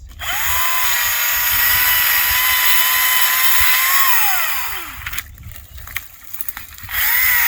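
Echo DCS-2500T 56-volt battery chainsaw running flat out with a steady high whine for about four seconds, winding down, then spinning up again near the end.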